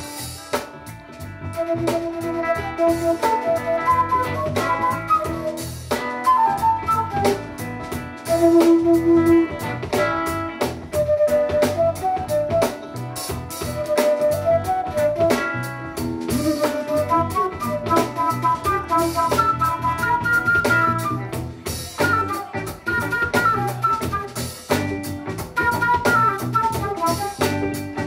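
Live funk band playing: a flute plays a quick, winding solo melody over drum kit, bass and guitar.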